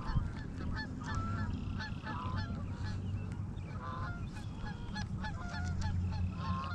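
Geese honking repeatedly, short calls coming in quick runs throughout, over a low steady rumble.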